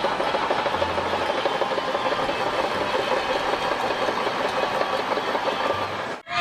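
Small battery-powered toy vehicle motor running with a steady, rapid rattle, cutting off abruptly near the end.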